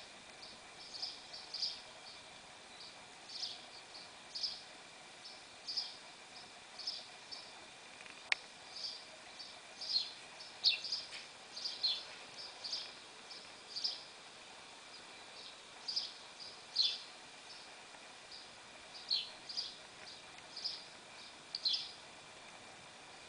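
Recorded birds chirping, played from an iPad's speaker: short high chirps, many dropping in pitch, one or two a second, over a faint steady hiss. A single sharp click about eight seconds in.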